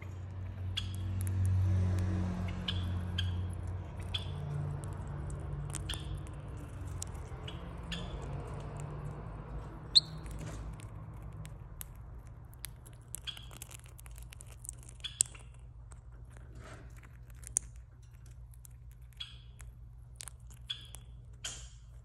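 A parrotlet's beak clicking and crunching as it picks crushed chili flakes and seeds off a bare palm. The sharp ticks come irregularly, about one a second and closer together in the second half, with one much louder crack about ten seconds in. A low hum runs underneath, strongest in the first few seconds.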